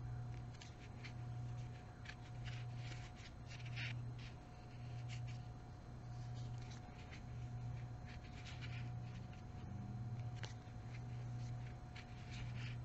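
Crochet hook working yarn: irregular light scratchy clicks and rubs as stitches are pulled through. Underneath runs a low hum that swells and fades about once a second.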